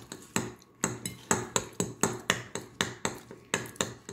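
Plastic utensil knocking and scraping against the dish in quick, even strokes, about four a second, as macaroni is scooped up fast.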